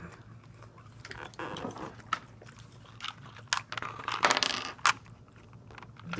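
Food packaging being handled: scattered light clicks and a short burst of crinkling about four seconds in.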